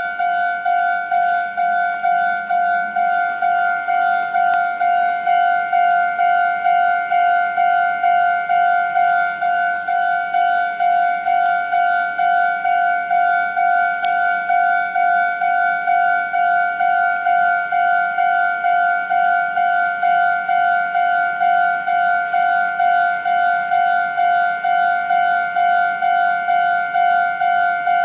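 Japanese railway level-crossing warning bell ringing, a steady electronic 'kan-kan' tone struck about twice a second.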